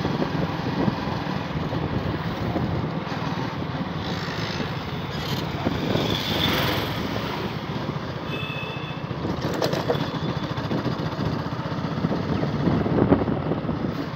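Motorcycle engine running steadily while riding along a road, a continuous low rumble with a few brief passing sounds over it.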